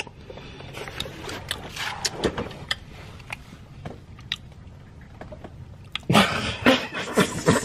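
A person eating a snack from a plastic wrapper: scattered small crunching clicks of chewing, then louder rustling and crunching about six seconds in.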